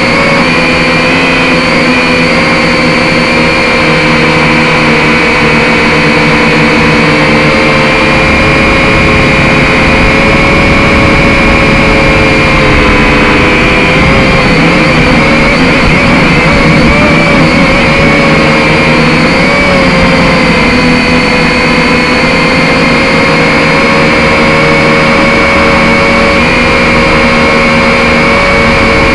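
Quadcopter drone's motors and propellers whining steadily and loud, heard close up. Midway the pitch wavers up and down for several seconds, then settles again.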